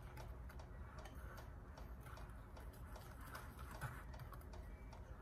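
Wire balloon whisk stirring egg yolks, sugar and cornstarch in a bowl, its wires ticking faintly and steadily against the bowl's sides.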